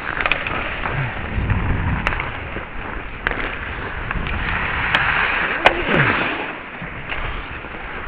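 Ice hockey skates gliding and scraping on the ice, heard close up from a helmet-mounted camera, with scattered sharp clicks of sticks and puck. The scraping swells around five seconds in, and a single loud sharp click comes just after.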